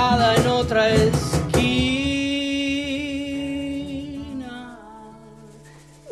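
The end of an acoustic rock song played on acoustic guitar, acoustic bass guitar and cajón. The strummed chords and cajón hits stop about a second and a half in. A last held note then rings on and fades away.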